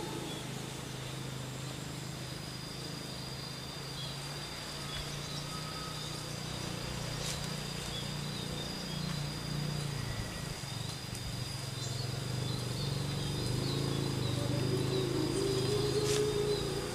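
Steady high-pitched insect drone with scattered bird chirps over a low, wavering hum, with a couple of faint clicks.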